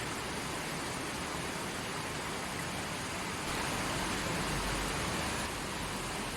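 Forest creek flowing: a steady rush of running water, swelling slightly for a couple of seconds in the middle.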